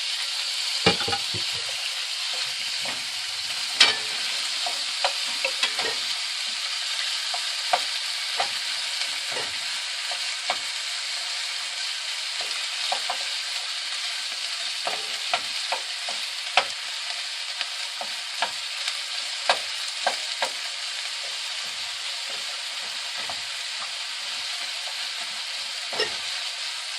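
Cubed chicken tenders sizzling in a frying pan with a steady hiss, and a utensil stirring them, clicking and scraping against the pan every few seconds.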